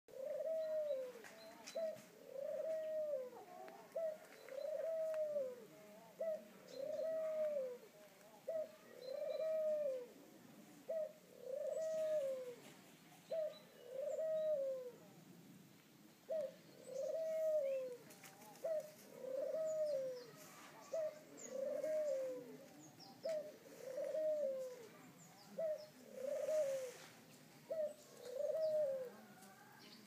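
A dove cooing over and over: a short note, then a longer coo that rises and falls in pitch, repeated about every two seconds.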